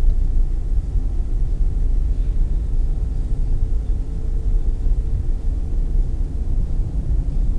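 Steady low rumble of a car's engine and tyres on the road, heard from inside the cabin at moderate speed. A faint steady hum sits on top of it for a few seconds in the middle.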